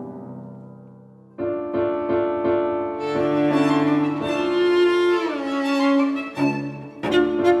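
A grand piano chord, on a Steinway Model B, dies away. About a second and a half in, a string quartet comes in with sustained bowed notes, slides down in pitch about five seconds in, and starts a new phrase near the end.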